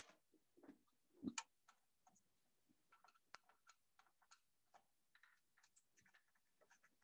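Near silence with faint, scattered small ticks and clicks, two a little louder about a second in, from a screwdriver working the screws of a Sony DVD recorder's sheet-metal mechanism cover.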